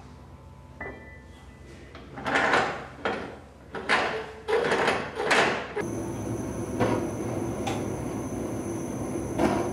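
Steel kiln door being closed and clamped with its screw handwheel: four or five loud scraping, grinding swells of metal on metal. From about six seconds in they give way to the steady rushing of the gas kiln's burners firing, with a faint high whine.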